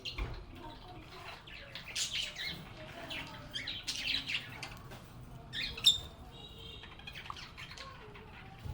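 Several lovebirds chirping and chattering in quick, high-pitched calls, with a sharp, louder call about six seconds in followed by a short held whistle.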